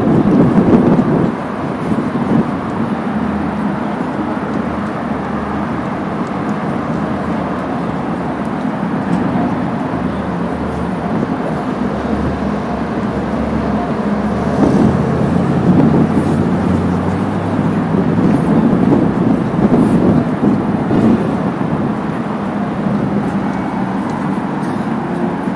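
City road traffic with a vehicle engine running nearby, heard as a steady rumble. It swells briefly at the start and again about fifteen to twenty seconds in.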